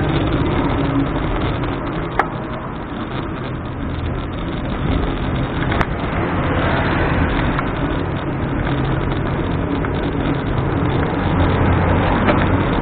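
Steady wind and road rumble on a bicycle-mounted camera rolling along a concrete street, with two sharp clicks about two and six seconds in. An oncoming motorcycle's engine grows a little louder near the end.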